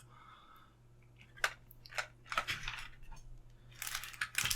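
Packaging of a boxed pocket knife being handled: a few light clicks and taps, then rustling near the end as items are taken out.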